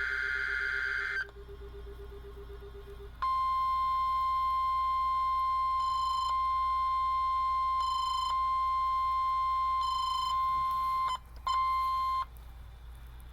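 NOAA Weather Radio test signal through a weather radio's speaker. The end of a screeching SAME digital header burst gives way after a short gap to the steady 1050 Hz warning alarm tone, which holds for about eight seconds, breaks off briefly, sounds once more for under a second and stops.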